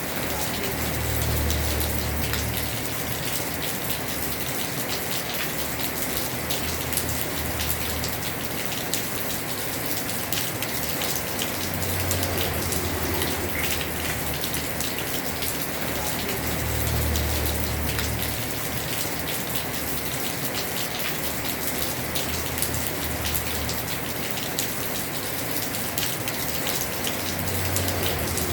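Heavy rain falling steadily on a house roof, a dense, even hiss of drops. A low rumble swells and fades several times underneath.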